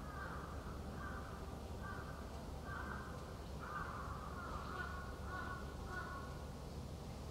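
Birds calling again and again, a string of short rasping calls each under a second long, over a low steady rumble.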